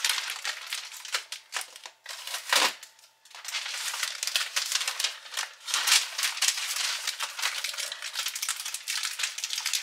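Flexible vent hose crinkling and rattling as it is bunched up and wrapped with metal foil tape, with a short lull about three seconds in.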